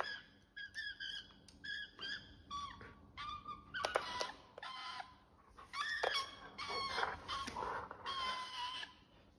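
Australian magpie calling in a quick series of short, warbling notes that glide up and down in pitch, some nearly running together.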